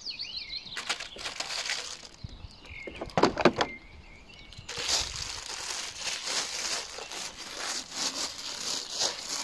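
Plastic protective wrap crinkling and rustling as a lawn mower's folded handle is unwrapped and raised, with a short loud clatter of the handle tubes about three seconds in.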